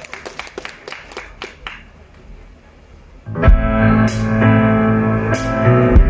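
Scattered clapping from the crowd dies away, and about three and a half seconds in a live band starts the song: held keyboard chords over a strong bass, with a few cymbal strokes.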